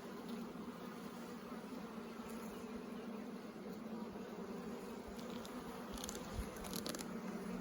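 Honeybees buzzing around an open hive as a steady low hum, with a few short clicks and knocks about five to seven seconds in.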